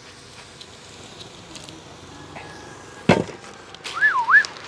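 A lidded metal cooking pot set down on a wooden cabinet top, one sharp knock about three seconds in. A short wavering whistle follows near the end.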